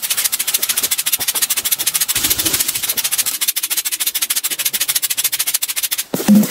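Egg frying in a hot pan, sizzling with a dense, rapid crackle.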